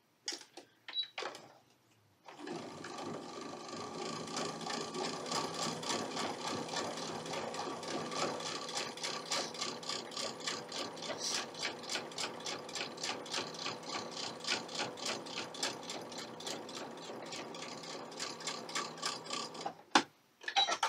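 Domestic electric sewing machine stitching a narrow edge seam at a slow, steady speed, each needle stroke ticking in a fast even rhythm. It starts about two seconds in, after a few clicks, and stops just before the end with a sharp click.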